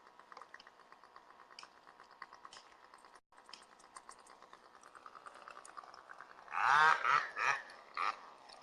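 A dog giving four short, loud whining yelps in quick succession, starting about six and a half seconds in, over a faint rapid ticking in the background.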